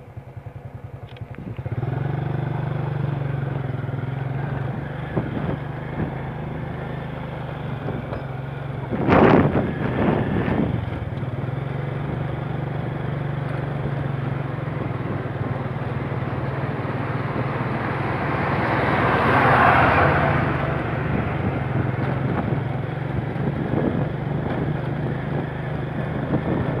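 Motorcycle engine running steadily as the bike rides over a rough dirt road, the engine sound picking up about two seconds in as it pulls away. There is a brief loud burst of noise about nine seconds in, and the noise swells for a few seconds around twenty seconds in.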